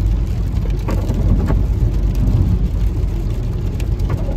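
Car driving on a wet road in rain, heard from inside the cabin: a steady low rumble of engine and tyres, with a few faint taps.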